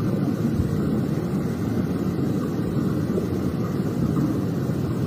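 Steady rushing wind noise of a severe thunderstorm buffeting a phone's microphone, with no distinct thunderclap.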